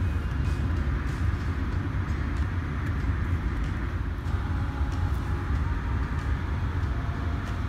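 Car climate-control fan blowing air out of rear-seat footwell vents: a steady rush of air with a low rumble underneath, heard inside the car's cabin.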